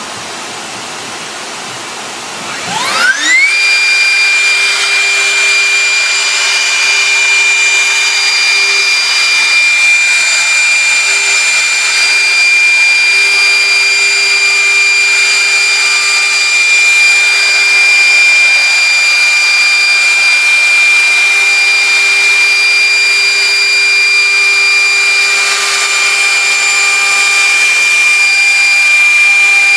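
A CNC router spindle spins up about three seconds in: its pitch rises quickly and settles into a steady high whine over a constant rushing noise.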